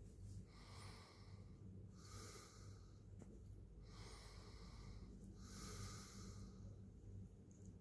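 Domestic cat purring, faint: a low steady hum with a soft breathy swell on each breath, about every one and a half to two seconds.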